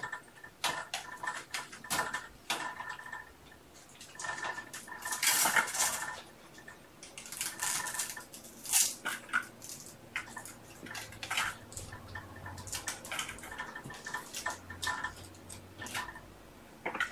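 Handling noise close to the microphone: an irregular run of light clicks, knocks and rustling, with a louder rush of rubbing or rustling about five seconds in and a sharp knock near the middle.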